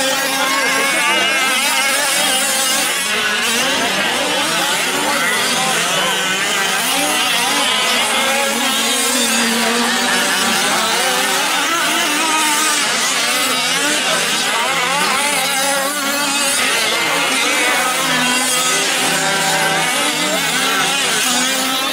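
Several 1/5-scale gas-powered RC off-road trucks racing, their small two-stroke engines whining and revving up and down over one another.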